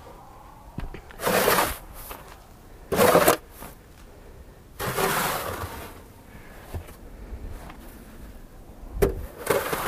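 Snow shovel scraping snow off wooden steps and decking in a few separate strokes of about a second each, the longest in the middle, with a short sharp knock near the end.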